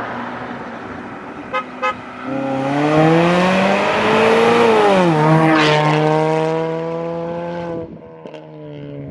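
Straight-piped Ford Mustang EcoBoost 2.3-litre turbocharged four-cylinder making a hard acceleration pull past: the engine note climbs in pitch, drops sharply with an upshift about five seconds in, then holds and fades as the car goes away. Two short beeps sound just before the pull.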